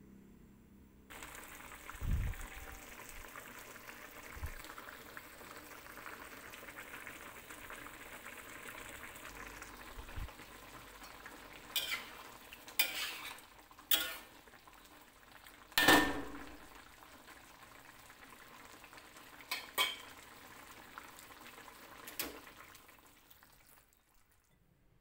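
Tofu and eggplant simmering in broth in a metal wok, a steady hiss, while a metal spatula stirs and clacks against the wok several times, the loudest about sixteen seconds in.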